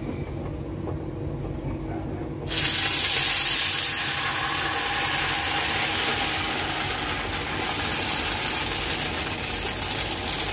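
Dora cake (pancake) batter sizzling in hot oil on a tawa: a steady hiss that starts suddenly about two and a half seconds in and carries on. Before it, only a low steady rumble.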